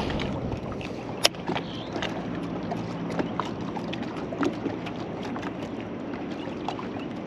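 Water lapping against a small fishing boat's hull with a faint steady hum and light wind on the microphone. Scattered light clicks of rod-and-reel handling come through, with one sharper click a little over a second in.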